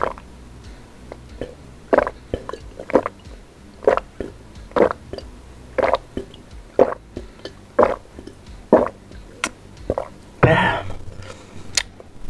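A person gulping water from a glass jar, one swallow after another at about one a second, followed by a short vocal sound about ten seconds in.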